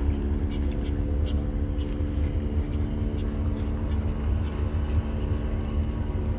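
A boat's engine running steadily: an even hum with a heavy low rumble underneath. Faint short ticks or chirps are scattered over the top.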